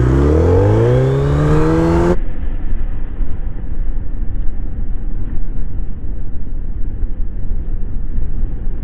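Suzuki Hayabusa's inline-four engine pulling away under acceleration, its note rising steadily in pitch. About two seconds in it gives way to a rougher, muffled recording of gusty wind rumble from riding at speed.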